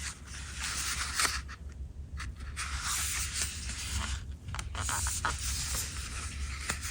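Rustling and scraping of the mechanical pencil's packaging being handled and turned over, with a few light clicks and a steady low hum underneath.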